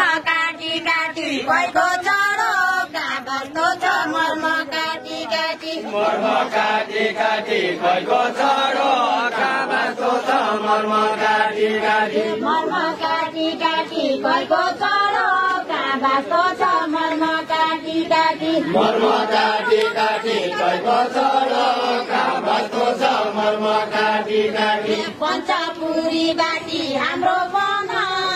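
A group of villagers singing a deuda folk song together, chant-like phrases sung in chorus by a line of linked dancers.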